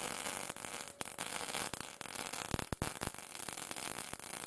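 Electric arc welder crackling steadily as a weld bead is laid along the edge of an old steel ax head, with a few sharp pops about two and a half to three seconds in.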